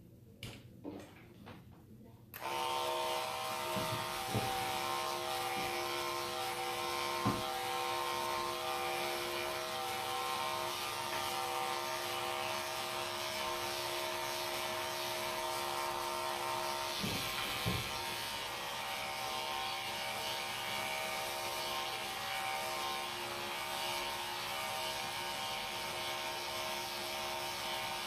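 Electric dog-grooming clippers switched on about two seconds in, then running steadily, with a few short knocks from handling.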